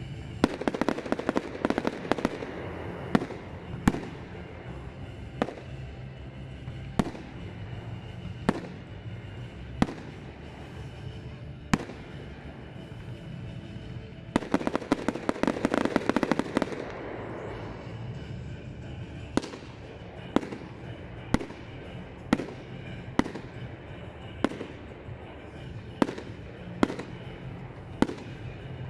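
Aerial fireworks display: shells bursting in sharp bangs, with two stretches of rapid crackling, one at the start and one about halfway through. Near the end the bangs come singly, about once a second.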